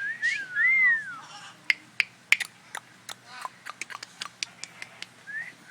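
A pet parrot whistling a few gliding notes that rise and fall, followed by a run of sharp, irregular clicks.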